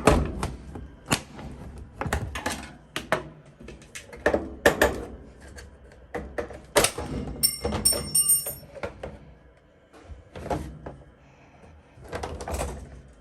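Flat screwdriver prying at the clips of a Maytag washer's panel: irregular clicks, knocks and scrapes of plastic and metal, with a brief high-pitched squeak a little past halfway.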